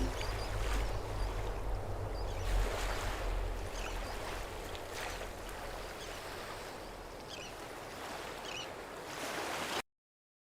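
Steady rushing ambient noise with a low rumble underneath and a few faint high chirps. It fades slowly, then cuts off suddenly near the end.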